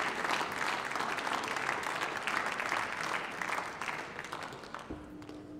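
Applause from members of parliament in a large chamber, many hands clapping and then dying away near the end. A low steady hum comes in just before the end.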